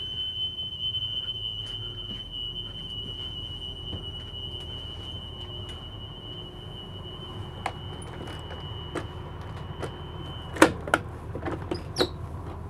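School bus emergency-exit alarm buzzer sounding as one steady high tone, the warning that an emergency exit is open. It cuts off about ten and a half seconds in, followed by a few sharp clunks as the emergency exit is shut.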